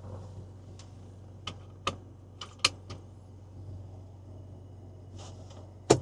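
Irregular sharp clicks and knocks of parts being handled inside a car, over a low steady hum; a cluster of clicks between one and three seconds in, and the loudest, single click near the end.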